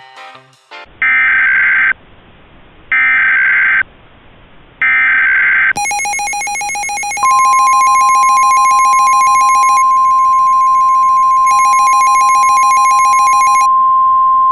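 Emergency Alert System tones: three short bursts of screeching SAME header data about a second apart, then the harsh buzzing two-tone attention signal. A steady single-tone alert joins it about a second and a half later and holds on after the two-tone stops near the end. Together they mark the start of an emergency alert broadcast.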